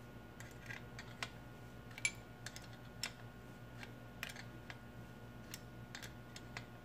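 Faint, irregular small metal clicks of wrenches working an adjustable pushrod as it is turned out to put preload on the hydraulic lifter, over a steady low hum.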